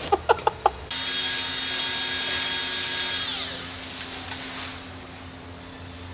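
An electric power tool's motor whirring at full speed with a steady whine, then winding down with a falling pitch once it is let off.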